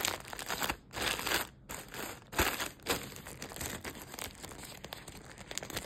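Pink plastic courier mailer bag crinkling and rustling in irregular bursts as it is handled, louder about a second in and again midway.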